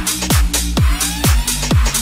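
Background electronic dance music with a steady, fast four-on-the-floor kick drum, about three beats a second, over sustained bass notes.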